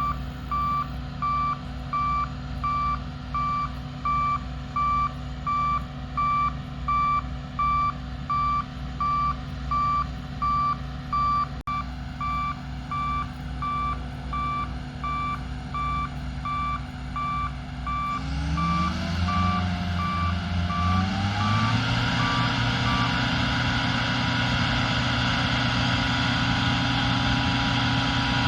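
Combine harvester's diesel engine running with its reversing beeper sounding about one and a half times a second; about two-thirds of the way through the engine is throttled up in steps to full speed and runs louder and steady, as the beeping stops.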